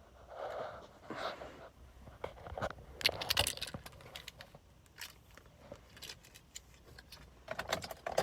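Keys jangling, with a scattering of small clicks and rustles.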